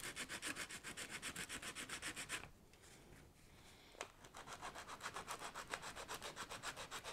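Sandpaper rubbed by hand in quick back-and-forth strokes, about five a second, smoothing a hardened super-glue patch on a convertible top. The strokes stop for about a second and a half partway through, a short tap follows, and the sanding resumes.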